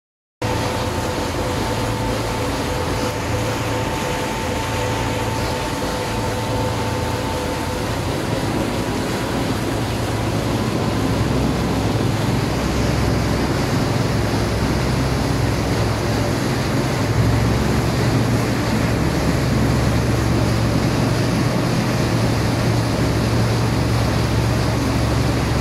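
High-speed passenger boat's engines droning steadily, with the rush of the churning wake behind the stern. A faint steady whine fades out about eight seconds in, and the drone grows a little louder past halfway as the boat gets under way.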